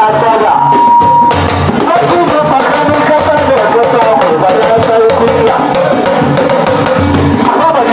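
Music with drums and percussion keeping a steady beat under a melody line.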